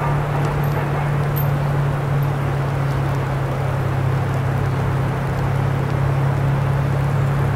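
Steady outdoor ambience: an even hiss with a constant low hum underneath and a few faint ticks.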